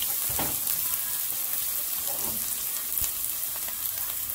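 Chopped onion frying in hot olive oil in a pan: a steady crackling sizzle, with a few brief knocks about half a second, two seconds and three seconds in.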